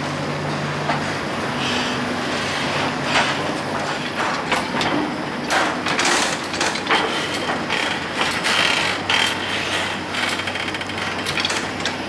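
A Geneva TPG tram rolling slowly past over temporary track. Its electric drive hums steadily while the wheels click and clank irregularly over the rail joints, with a few brief high squeals about two thirds of the way through.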